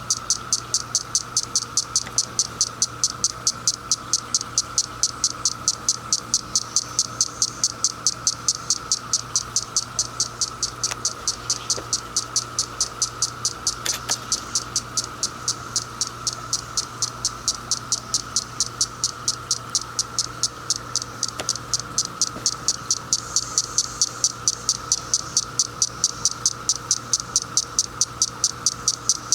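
Close, rapid, evenly spaced high clicking from a cicada, which the uploader takes for a female flicking her wings to attract males. Behind it is a steady droning chorus of male cicadas.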